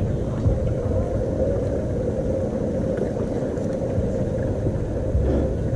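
Steady low rumble with a constant hum.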